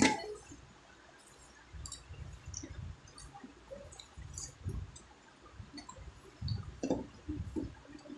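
Wet chewing, slurping and lip-smacking as a man eats tomato chutney with his fingers. There is a loud sharp noise right at the start, and a denser run of mouth sounds near the end.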